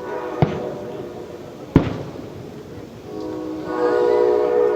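Two sharp firework bangs, about half a second and just under two seconds in, the second the louder. A steady horn blows briefly at the start and again, louder, through the last two seconds.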